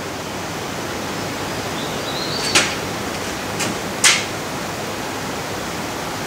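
A steady hiss of workshop background noise, broken by two sharp clicks about two and a half and four seconds in, and a fainter one between them, as metal parts on the lathe are handled.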